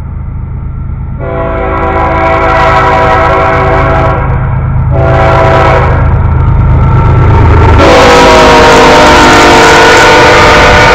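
Freight train's diesel locomotive horn sounding the end of the grade-crossing signal: a long blast, a short one about five seconds in, then a final long blast held near the end. Underneath, the locomotives' diesel engines rumble louder as the train draws close.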